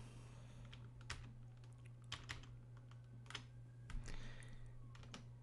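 Faint, irregular clicks of a computer keyboard and mouse, about eight over a few seconds, over a low steady hum.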